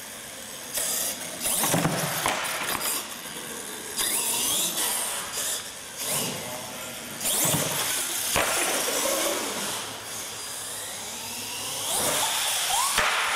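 Radio-controlled monster truck's motor revving in repeated surges, its pitch rising and falling as it accelerates and lets off, with a high whine.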